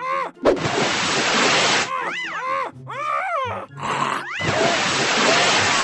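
A cartoon character's wordless voice: grunts and groans that swoop up and down in pitch. Between them come two longer bursts of rushing noise, about half a second in and again near the end.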